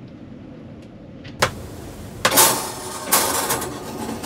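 A sharp click about a second and a half in, then two short scraping clatters: a metal baking tray being slid into a small caravan oven and the oven door handled.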